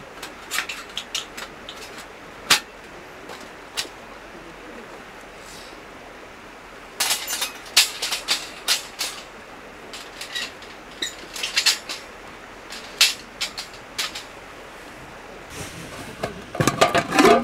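Metal clinks and clanks of a folding steel fire stand being put together: a thin curved steel plate and wire legs knocking against each other in scattered clusters of sharp taps. Near the end, a black mess tin lid is handled with more metallic clatter.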